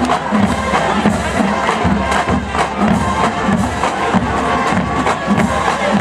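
High school marching band playing: brass horns over a drum line keeping a steady beat.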